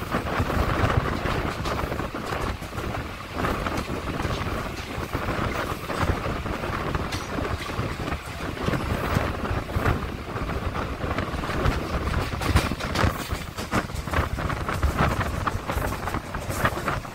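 Mumbai suburban electric local train running: a steady rumble with irregular clatter of wheels on the rails, heard from its open doorway with wind buffeting the microphone.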